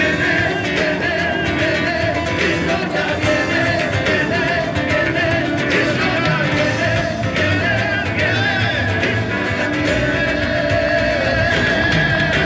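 Live worship music: several men singing together into microphones over an amplified band.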